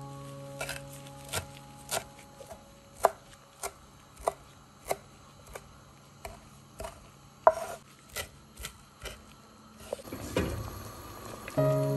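Knife chopping fresh parsley on a wooden cutting board: single sharp knocks, a little under two a second. About ten seconds in they stop, giving way to a short noisy stretch of a creamy mushroom sauce being stirred in a pan.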